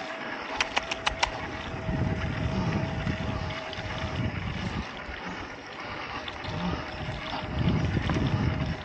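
Wind buffeting the microphone and tyre noise from a mountain bike riding along, under a faint steady hum. A quick run of about five sharp clicks comes about half a second in.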